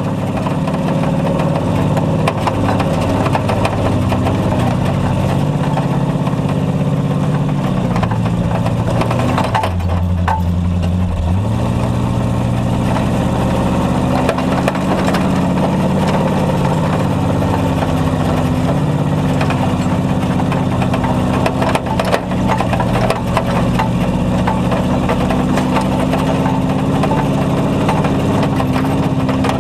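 4x4 tow truck's engine running steadily under load as it climbs a trail hill with a truck on the hook. The engine pitch drops briefly about ten seconds in, then picks up again.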